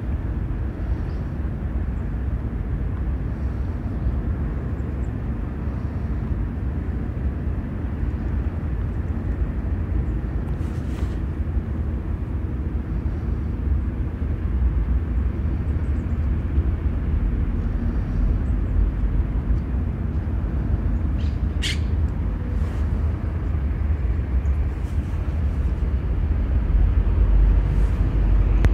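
Steady low rumble of distant city traffic, with a brief high chirp about three-quarters of the way through.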